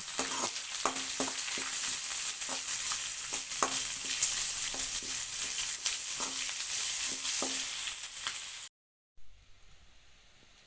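Chopped onion and green chillies sizzling in hot oil in a kadai while a spatula stirs them, its strokes knocking the pan about once or twice a second with a brief ringing note. The sound cuts off suddenly near the end, leaving near quiet.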